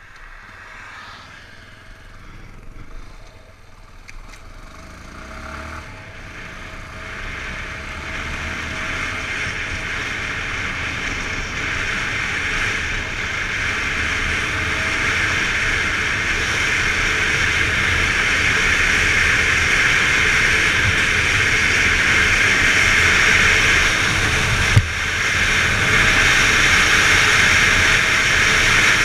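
Yamaha XTZ 250 Lander motorcycle's single-cylinder engine running while riding, under a steady rush of noise that grows much louder as the bike gets going. There is one sharp knock near the end.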